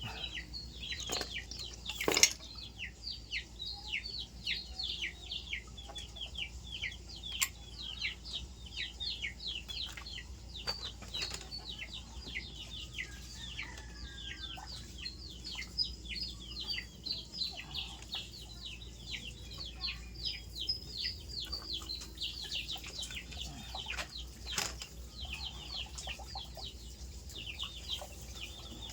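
Birds chirping continuously in rapid short falling chirps, several a second, with a few sharp knocks, the loudest about two seconds in.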